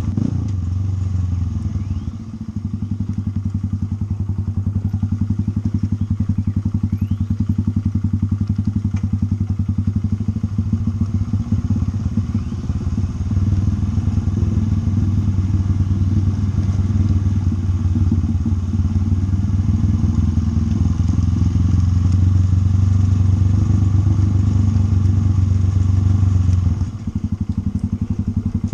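Motorcycle engine running steadily while being ridden. The throttle eases off briefly about two seconds in and again near the end.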